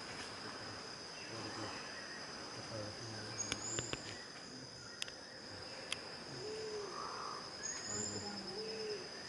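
Tropical forest ambience: a steady, high insect drone, with a few short bird calls and two low, arching hooting notes in the second half, plus a few light clicks.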